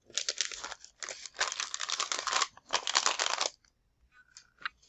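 Crinkly packaging being handled and crumpled in three stretches of dense crackling that stop about three and a half seconds in.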